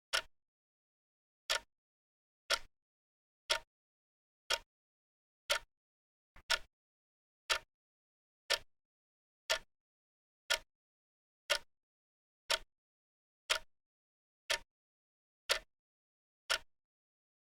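Clock ticking steadily, one sharp tick a second with dead silence between ticks, marking off the seconds of a countdown timer.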